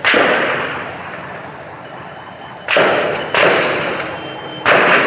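Gunshots echoing between tall buildings: four loud shots, one at once and three more about two and a half, three and a half and four and a half seconds in, each trailing off in a long rolling echo.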